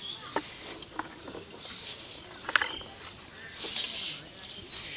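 Footsteps rustling and crackling over dry leaves and gravel, with scattered sharp clicks and a few short bird chirps.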